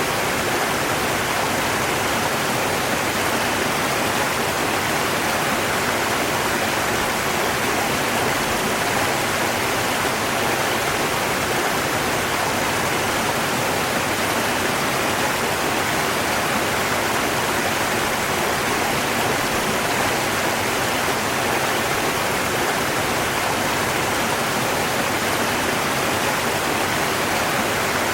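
A river's water rushing in a steady, unbroken hiss, with no changes or separate splashes.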